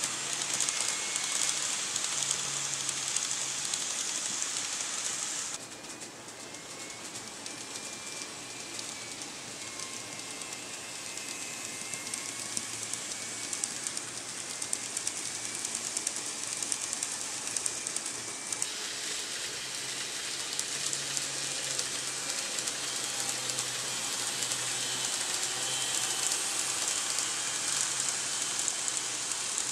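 Model train running on its track: a steady rush and fine clatter of wheels on the rails, with a faint high whine. The sound turns duller about five seconds in and brighter again after about eighteen seconds.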